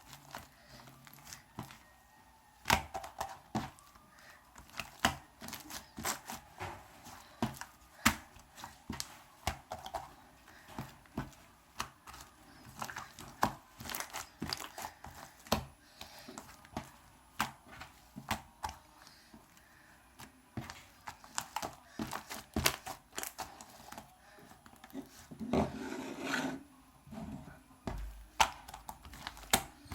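Hands kneading and stretching a wet, sticky slime, making irregular crackling clicks and pops several times a second.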